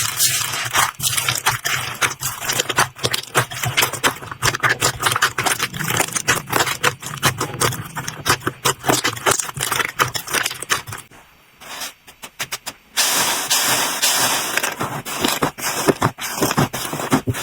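Slime being squeezed, poked and stretched by hand, a dense run of small crackles, clicks and pops. It drops off briefly after about eleven seconds, then comes back thicker.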